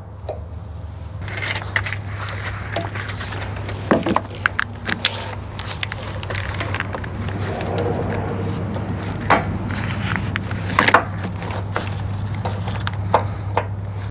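Hand work on a dump bed's hydraulic pump unit: a wrench and metal hose fittings clicking and knocking, and rubber hydraulic hoses being handled. The sharpest clicks come in clusters about four seconds in and again around nine to eleven seconds in, over a steady low hum.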